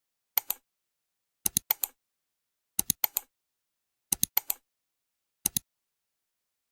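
Sharp, bright clicks in quick clusters of two to four, a cluster about every second and a half, with dead silence between.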